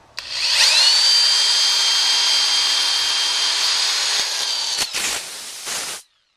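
Electric drill spinning up to a steady high whine as it drills a hole into a truck tire. Near five seconds in there is a click, then a rougher stretch, and the drill stops abruptly about six seconds in.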